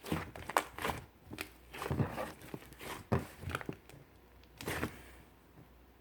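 Hands squishing, pressing and stretching a soft liquid slime, giving an uneven run of wet crackling and squelching sounds that die down about five seconds in.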